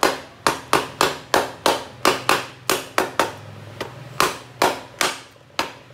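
Light tapping on the clutch-side crankcase cover of a Honda Wave RSX 110 engine, seating it onto its dowel pins: about three sharp knocks a second, ten or so in a row, then after a short pause four more.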